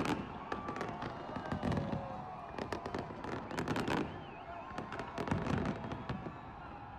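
Fireworks going off: an irregular string of sharp bangs and crackles, several in quick clusters.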